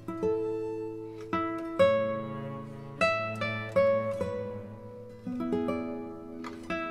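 Background music: a plucked guitar picking out a gentle melody, one note after another, each ringing and fading.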